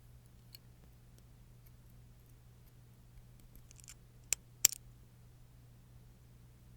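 Small nail tools handled on a work surface: faint scattered ticks, then two sharp clicks a little past the middle, the second one the loudest and doubled.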